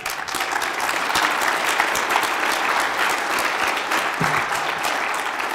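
Audience applauding, many hands clapping together in a dense, steady patter.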